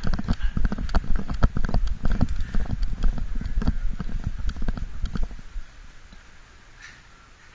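Rapid, irregular knocks and thumps of a body-worn action camera jostling on a small dog as it moves, heard as contact noise through the camera's own microphone; they stop about five and a half seconds in.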